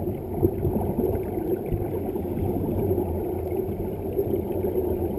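Muffled underwater noise picked up by a camera in a waterproof housing beneath the water: a steady low rumble with almost nothing above it.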